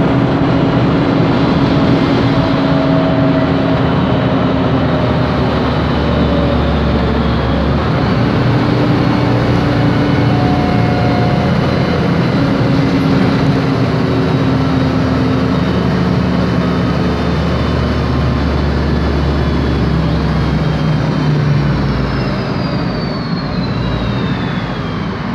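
Interior of a 2007 MAN Lion's Classic city bus under way, heard from the rear: its CNG engine and Voith DIWA 864.3 automatic gearbox running, with the noisy differential adding a steady whine. Near the end a high whine falls in pitch as the sound eases off.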